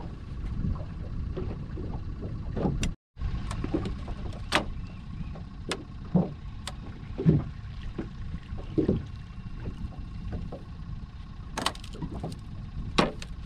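Wind buffeting the microphone on an open boat, a steady low rumble, with scattered light knocks and clicks over it. The sound cuts out completely for a moment about three seconds in.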